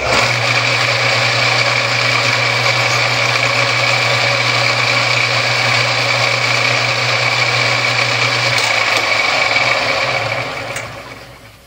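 Metal lathe switched on, its spindle and chuck running steadily with a motor hum and a high whine. About eight and a half seconds in the motor is switched off, and the chuck runs down over about three seconds against a spring-loaded cork brake on the spindle. The brake slows it only a little faster than coasting would: it is hardly an abrupt stop.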